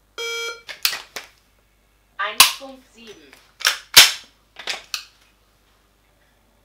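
A short electronic start beep, then a series of sharp clicks and snaps as a pistol is drawn from a belt holster, dry-fired, worked by hand and reholstered. The loudest snap comes about four seconds in.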